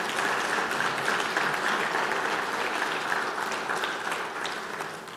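Congregation applauding, a dense patter of many hands clapping that tapers off near the end.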